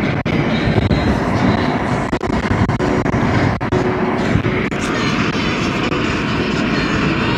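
Steady wind rush and road noise inside a moving car with a window open, with a few brief dropouts.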